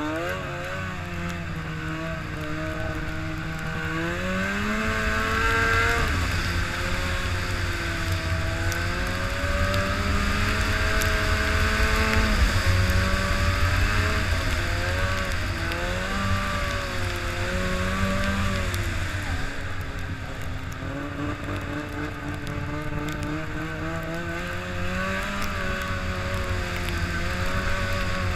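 Arctic Cat Firecat F6 snowmobile's two-stroke twin engine running under way, its pitch rising and falling with the throttle over a steady low rumble.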